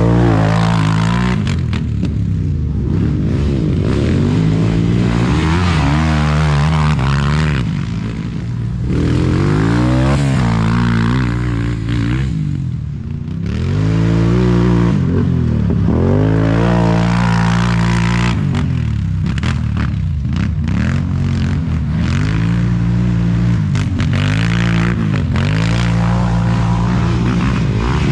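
ATV engines accelerating and backing off again and again, pitch rising and falling with the throttle as the quads ride the corners, with short lulls about eight and thirteen seconds in.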